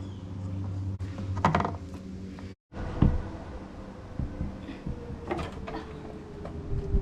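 Mechanical handling sounds, a few scattered clicks and knocks, as the oil filter cap of a Porsche 991 is unscrewed and the filter drawn out of its housing.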